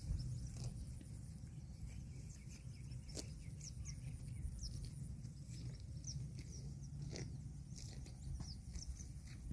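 Small birds chirping in many short, high calls over a steady low rumble, with a few scattered sharp clicks.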